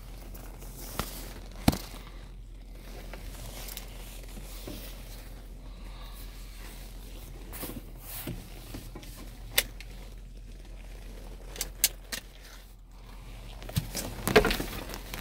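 Handling noise: steady rustling with a dozen or so scattered sharp clicks and knocks, the loudest cluster near the end.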